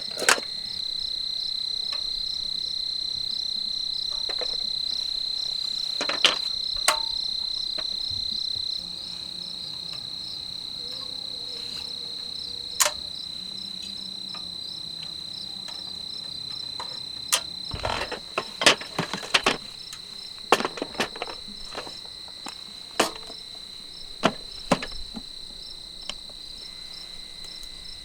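Steady high insect chorus, louder for the first third, with scattered sharp clicks and knocks, a cluster of them about two-thirds of the way through.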